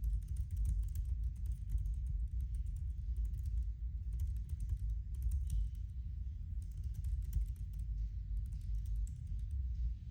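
Typing on a 16-inch MacBook Pro's built-in keyboard: a fast, uneven stream of key clicks.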